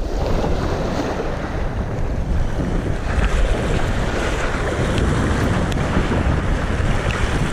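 Steady wind noise on the microphone over sea waves washing and breaking against the rocks.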